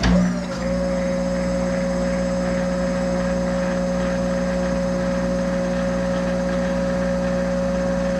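Monarch 10EE lathe starting up abruptly and running steadily under power, with a steady whine over a low hum as the spindle turns to run the tool back.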